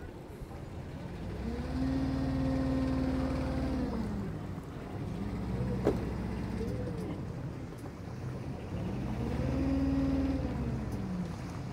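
An engine revved up, held, and let back down three times, with a sharp click about six seconds in.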